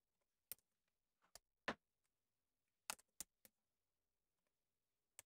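Near silence broken by a handful of faint, irregular laptop keyboard keystrokes, with short gaps between them.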